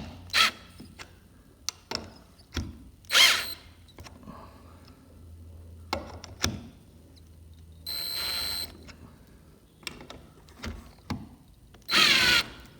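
Power drill driving lag screws in a few short trigger bursts, each under a second, with clicks and knocks between them. The loudest burst comes near the end, its pitch falling as the screw tightens.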